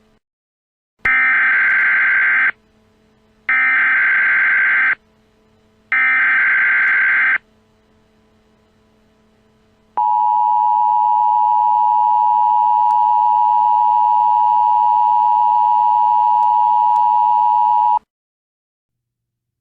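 Emergency Alert System activation: three short runs of warbling SAME digital header tones, each about a second and a half long and evenly spaced, then the EAS two-tone attention signal held steady for about eight seconds before cutting off abruptly.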